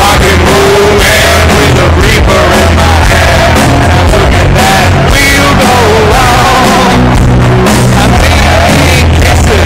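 Rock band playing live and very loud, with drums, a bass line and singing, recorded from within the audience.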